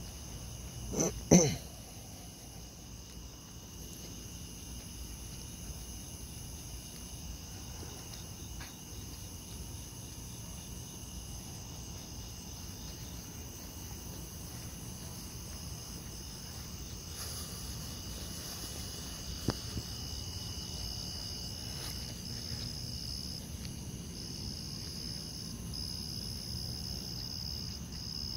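Crickets or similar night insects trilling steadily in several high-pitched layers, one layer pulsing in long stretches later on. A brief loud voice-like sound, such as a cough, comes about a second in.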